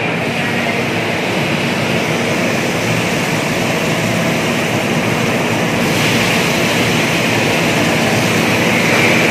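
A large kadai of oil deep-frying over its gas burner: a steady, loud roar of bubbling oil.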